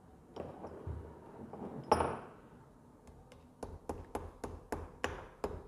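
Metal engine parts being handled, with one loud clank about two seconds in, then a run of light, evenly spaced hammer taps, about three or four a second, on the motorcycle engine being reassembled.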